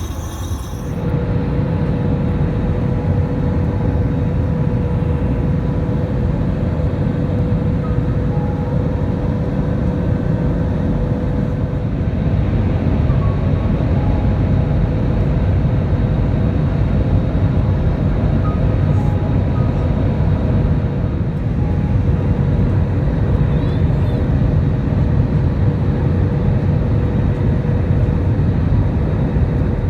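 Cabin noise inside an Airbus A320 in flight: a steady, loud rush of engines and airflow with a faint constant hum.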